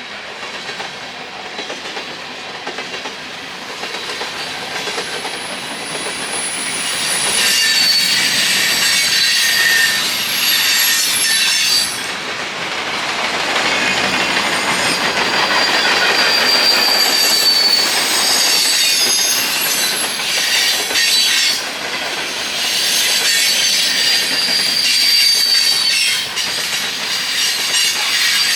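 Train rolling past with its wheels squealing on the rails in thin high-pitched tones over the rumble and clatter of the cars, growing louder over the first several seconds and then staying loud.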